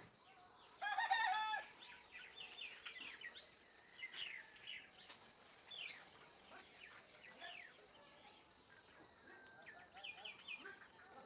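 A rooster crows once, briefly, about a second in, the loudest sound here. Small birds chirp throughout with quick falling notes.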